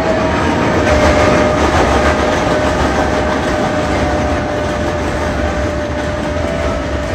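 Passenger train passing close by: a loud, steady rumble with a steady high tone held over it.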